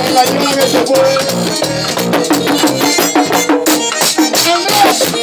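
Live merengue típico played by a small band: a button accordion carries the melody over a tambora drum, electric bass and a steady percussion rhythm.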